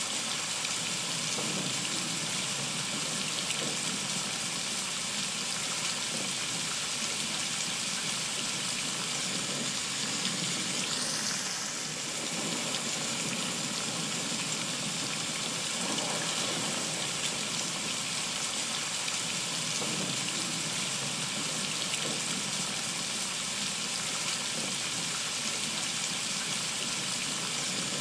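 Heavy rain falling steadily: a dense, even hiss of countless drops, dipping briefly about twelve seconds in.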